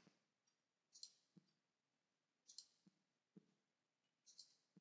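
Near silence broken by about half a dozen faint, short computer-mouse clicks, spaced irregularly.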